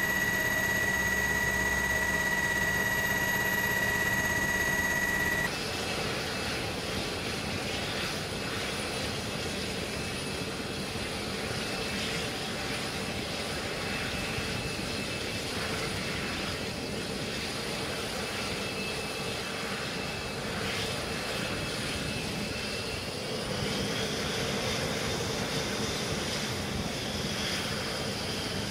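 Jet aircraft engines running on an aircraft carrier's flight deck. A steady high turbine whine lasts about the first five seconds, then changes suddenly to a quieter, rougher engine noise. About 23 seconds in, a whine rises in pitch and grows louder.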